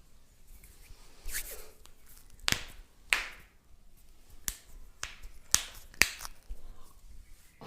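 Sharp hand slaps and snaps of an Indian head massage, about eight of them at irregular intervals.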